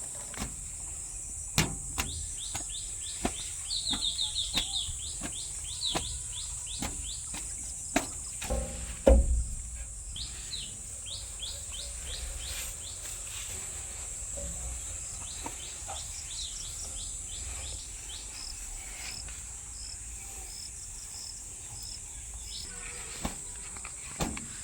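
Outdoor field ambience: a steady high-pitched insect drone, with a bird's short repeated chirps coming in runs and a few sharp clicks.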